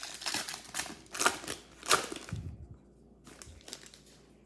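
Trading cards being handled and slid across one another: a run of crisp swishes and clicks, the loudest about one and two seconds in, then a few quieter clicks.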